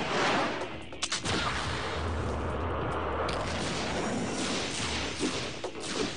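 Animated action sound effects: a steady rushing whoosh of a hovering vehicle, with a quick cluster of sharp, shot-like cracks about a second in.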